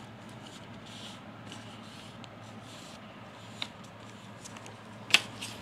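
A handmade paper card being handled, with soft rustling and two sharp clicks, the louder one near the end, over a low steady hum.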